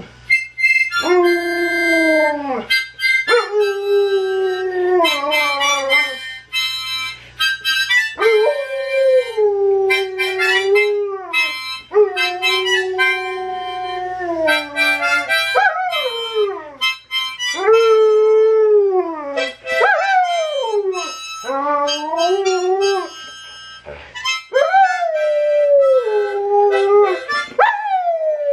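Alaskan Malamute howling along to a harmonica: a string of long howls, each lasting one to three seconds and most sliding down in pitch at the end, over the harmonica's held notes and chords.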